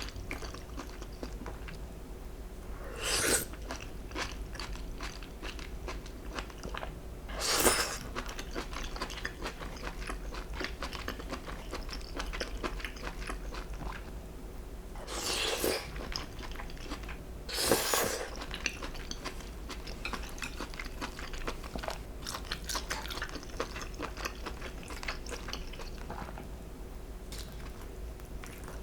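Close-miked eating: a steady run of small wet chewing clicks, with four louder crunching bites spread through.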